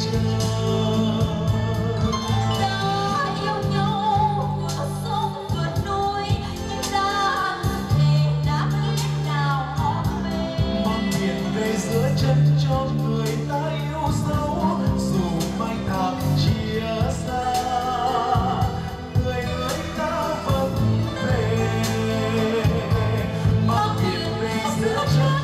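A Vietnamese song sung into microphones over instrumental backing with sustained low bass notes and light percussion, played through a stage sound system.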